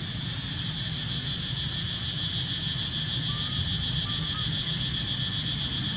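Steady, high-pitched drone of insects in dry forest, over a low steady hum, with a few faint short chirps in the second half.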